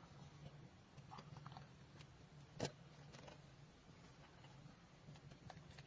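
Near silence: a faint low hum with a few soft clicks of dishes being handled, one sharper click about two and a half seconds in.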